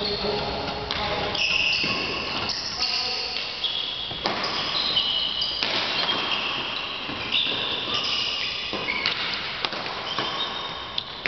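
Badminton rally: athletic shoes squeaking repeatedly on the court floor in short high squeals, with several sharp racket hits on the shuttlecock.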